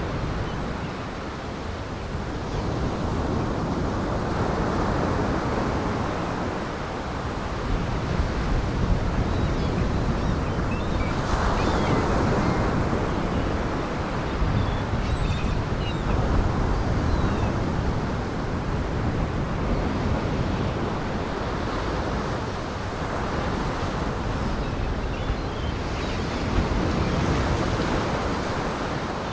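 Storm surf: large waves breaking against the shore in a gale, with wind buffeting the microphone. The noise swells and eases every few seconds as the waves come in.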